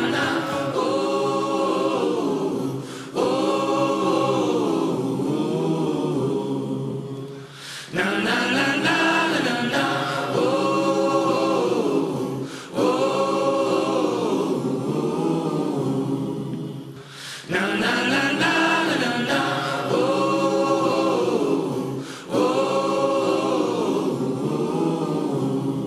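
Background music of sung voices in long held phrases. Each phrase starts sharply, about every five seconds, with the pitch sliding up and down.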